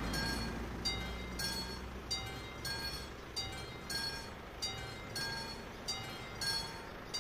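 Mechanical warning bell of a railway level crossing ringing in single metallic strokes, about one and a half a second, each stroke ringing on briefly: the crossing is warning of an approaching train. A car crossing the tracks fades away in the first two seconds.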